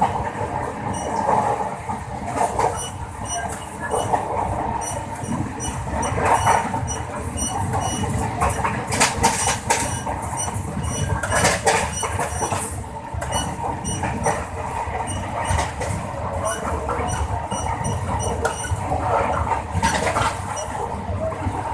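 Wheels of an LHB passenger coach running at high speed over the track, heard from inside the coach: a steady rumble and rush with irregular clacks over rail joints, and louder rattling spells about nine, eleven and twenty seconds in.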